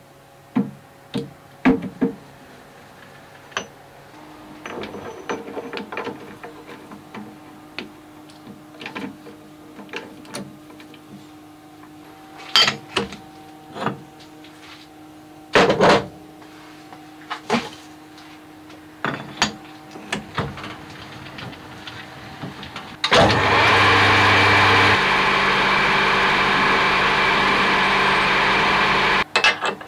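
Metal parts and tools clinking and knocking on a metal-turning lathe, then the lathe starts about three-quarters of the way in and runs steadily for several seconds before cutting off suddenly near the end.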